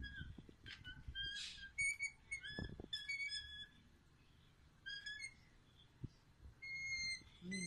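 Young southern crested caracara giving short, high-pitched begging calls in quick runs while being hand-fed, with a quiet spell in the middle and a longer call near the end.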